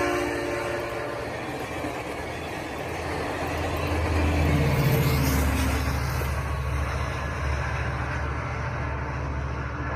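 North Carolina passenger train passing close by: the tail of its horn dies away in the first second, then the steady rumble of the coaches' wheels on the rails. A diesel locomotive's hum swells about four to five seconds in as the rear locomotive goes by, then the sound eases off as the train moves away.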